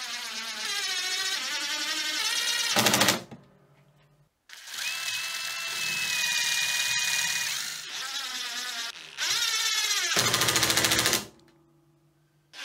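Cordless drill running in four bursts of a few seconds each, its motor whine changing pitch with speed, drilling screw holes through a quarter-inch aluminium plate into a plywood gantry. The last burst is the loudest.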